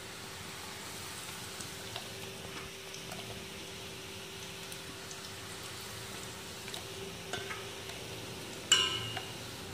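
Oil sizzling steadily as batter-coated potato balls (aloo bonda) deep-fry, with a faint steady hum and a few small ticks. Near the end there is one sharp, ringing metallic clink of steel kitchenware.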